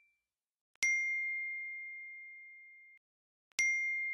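Two smartphone text-message notification dings about three seconds apart, each a single bright chime that rings on and fades away.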